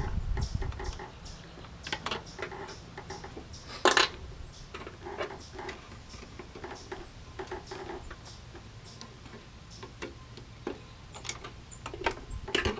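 Scattered small clicks and taps of hands working on a lawnmower engine's controls and cable, with two sharper knocks, one about four seconds in and one near the end.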